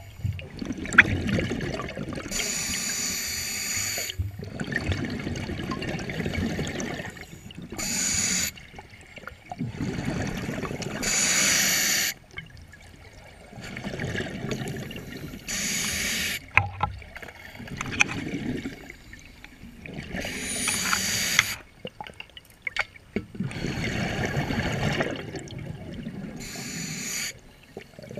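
Scuba diver breathing underwater through a regulator, in a steady cycle: bursts of exhaled bubbles every four to six seconds, with the hiss of breaths drawn through the regulator in between.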